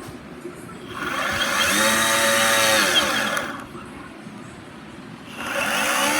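Boosted Board's belt-driven electric motor spinning up and winding down twice: a whine that rises in pitch and then falls each time. This is the weird noise that the owner traces to the left-side drive, with its old belts.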